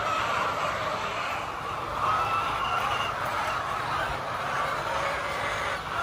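A flock of caged ready-to-lay pullets clucking and calling together, a steady dense chatter of many hens with scattered higher calls standing out.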